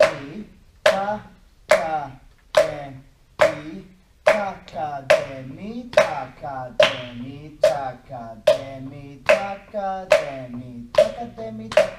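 Hand claps keeping a steady beat a little faster than once a second, with a voice reciting konnakol rhythm syllables between the claps; the syllables grow denser about four seconds in.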